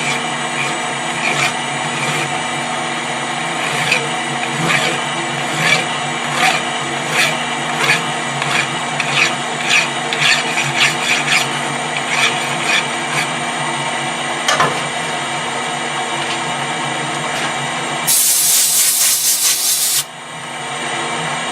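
Hand cutting strokes on metal, a rhythmic rasp about one and a half times a second, over a steady machine hum. Near the end a loud hiss lasts about two seconds and cuts off suddenly.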